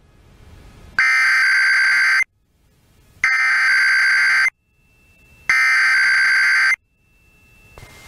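Emergency Alert System SAME header: three identical bursts of harsh digital data buzz, each a little over a second long and about a second apart, received over an FM radio station. They mark the start of a Required Weekly Test. Faint radio hiss fills the gaps between bursts.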